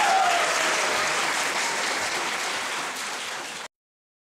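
Audience applauding, slowly fading, then cut off abruptly near the end.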